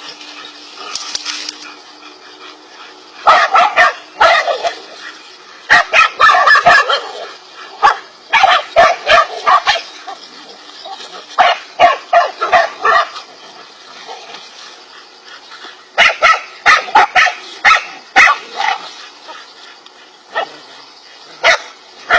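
Dogs barking at a king cobra, in repeated bursts of several sharp barks with short pauses between them.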